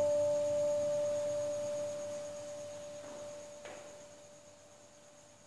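The last plucked note of a đàn bầu (Vietnamese monochord) ringing on at a steady pitch and fading slowly away. A faint knock comes about three and a half seconds in.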